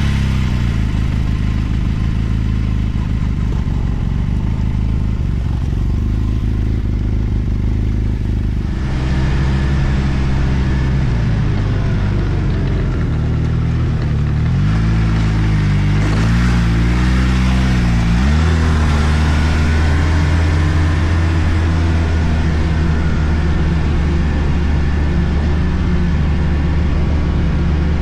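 A turbocharged four-stroke Arctic Cat snowmobile engine running just after starting. It runs steadily at first, then its speed rises and falls about nine seconds in, and it settles into a steady, higher-pitched run after about eighteen seconds.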